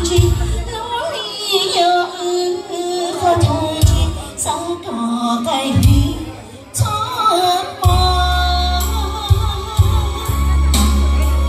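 Live band music: a woman sings a melody into a microphone over keyboard backing and a heavy bass beat. The bass drops out for most of the first half and comes back in about eight seconds in.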